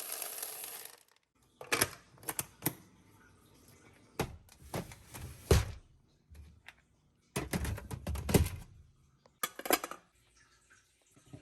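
Household containers and lids handled and set down, with quick clusters of clicks and knocks separated by short pauses. A steady rushing noise cuts off about a second in.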